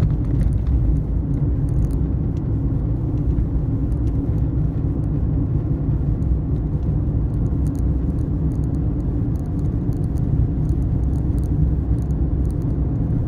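Steady low road and engine rumble of a moving vehicle, heard from inside the cabin while cruising at a constant speed.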